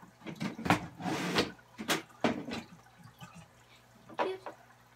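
Handling noises from reaching into a mouse cage: several sharp knocks and clatters, with a brief rustle lasting about half a second, about a second in.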